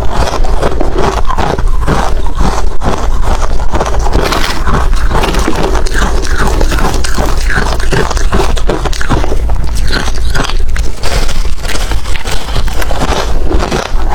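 Hard ice being bitten and chewed close to the microphone: a dense, unbroken run of loud crunches and cracks.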